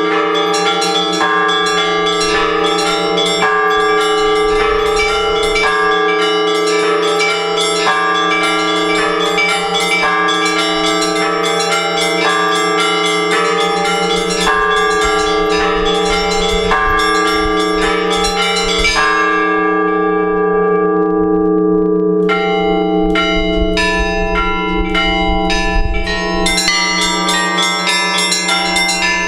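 Several Orthodox church bells ringing together: a large bell's deep hum holds underneath while smaller bells strike in a quick, repeating pattern. About two-thirds of the way through, the small bells stop for a few seconds while the low bell hums on, then start striking again.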